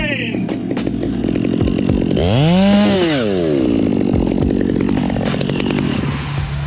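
Stihl chainsaw cutting through a small tree trunk. About two to three seconds in its engine pitch rises and then falls back, and near the end it settles to a steadier, lower note.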